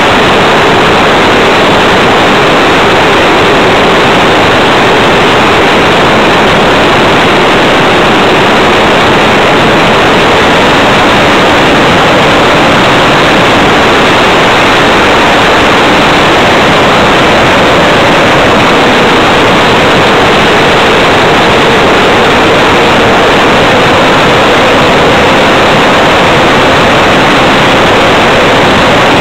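Loud, steady rush of an RC model Tiger Moth's motor, propeller and passing air, heard through the overloaded microphone of a camera mounted on the plane, with a faint hum that wavers slightly in pitch.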